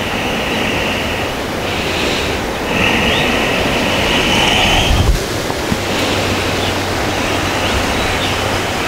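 Outdoor garden ambience: a steady rushing noise with a low hum beneath it, a high hiss that comes and goes in stretches during the first half, and a few faint bird chirps.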